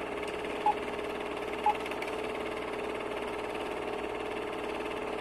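Film projector sound effect: a steady whirring clatter with a held hum, accompanying a countdown leader. Two short countdown beeps sound a second apart near the start.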